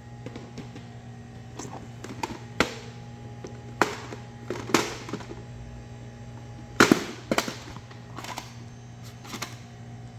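Plastic clicks and clacks of VHS cassettes and their cases being handled: about a dozen scattered sharp knocks, the loudest about seven seconds in, over a steady low hum.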